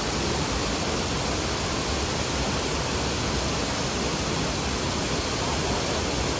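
Shifen Waterfall: a wide curtain of water falling into its pool, heard as a steady, even rush of water.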